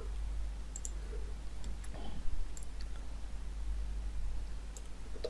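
A few faint, scattered computer mouse clicks over a low steady hum.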